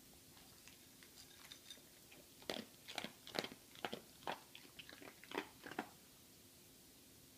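A small dog crunching dry kibble: a quick run of sharp crunches through the middle, with a few faint clicks before it.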